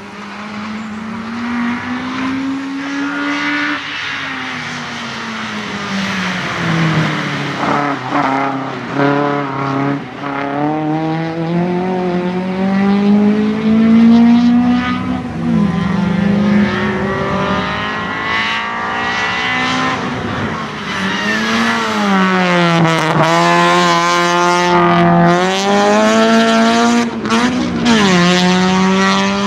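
Racing car engine driven hard, its pitch climbing and then falling sharply many times over as it accelerates, changes gear and lifts off for corners.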